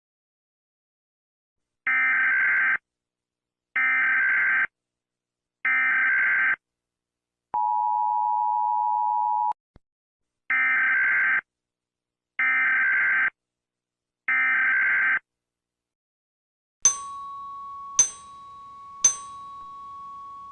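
Emergency Alert System signalling: three short screeching digital data bursts about a second apart, a two-second two-tone attention signal, then three more data bursts. Near the end come three sharp bell-like dings over a steady held tone.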